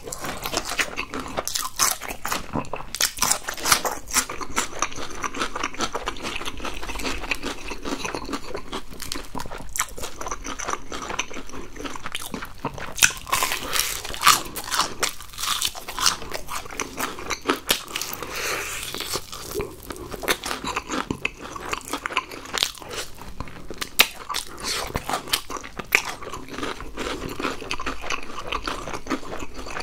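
Close-miked biting and chewing of crispy fried chicken (Mexicana Ppurigo chicken): irregular crunches of the fried coating with chewing between, a few crunches sharper and louder than the rest.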